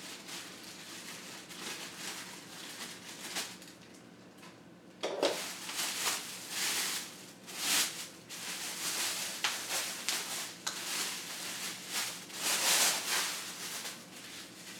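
Plastic packaging wrap rustling and crinkling in irregular bursts as it is handled and pulled off lamp parts, fainter at first and louder from about five seconds in.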